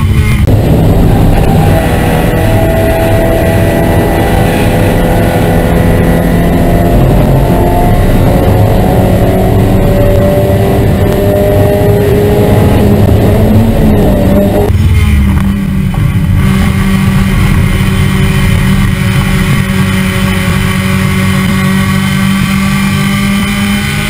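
Mazda Miata race car's four-cylinder engine running hard at speed, with wind and road noise from the onboard camera; the engine note rises and falls slowly and changes abruptly about two-thirds of the way through.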